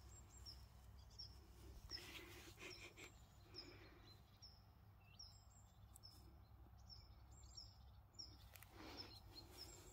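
Faint outdoor quiet with a small bird repeating a short, high, slightly falling chirp about twice a second, stopping a little after the middle. A few soft rustles are heard along with it.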